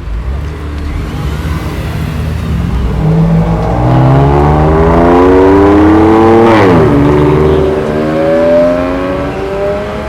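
A car's engine accelerating hard past, loud, its revs climbing, dipping sharply at a quick gear change about six and a half seconds in, then climbing again as it pulls away.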